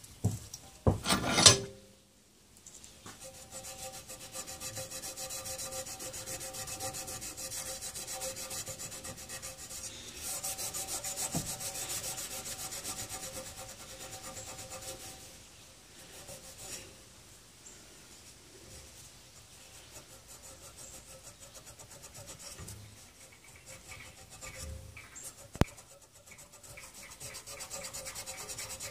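Scotch-Brite scouring pad scrubbing the steel shank of a garden hoe in fast back-and-forth strokes, cleaning it up before a new handle goes on. A couple of sharp knocks come about a second in; the scrubbing eases off in the middle and picks up again near the end, with a single sharp click a few seconds before the end.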